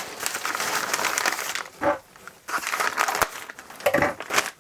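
Packing material crinkling and rustling as hands dig through a box, with a short lull about two seconds in.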